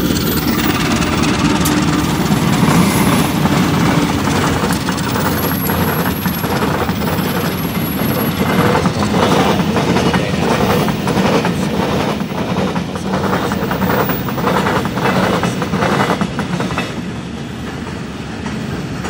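Diesel locomotive and a long train of ballast hopper wagons passing close by: a steady rumble with a quick clickety-clack of wheels over the rail joints. It is loudest in the middle and eases near the end as the train draws away.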